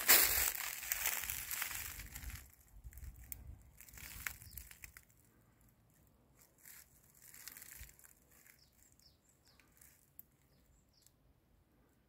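Dry leaves and brush rustling and crunching, loud at first and dying away after about two seconds, then quiet with a few scattered clicks and faint short bird chirps later on.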